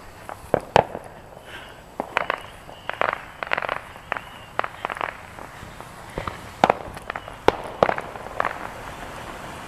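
Small firecrackers popping in an irregular series of sharp cracks, some coming two or three in quick succession.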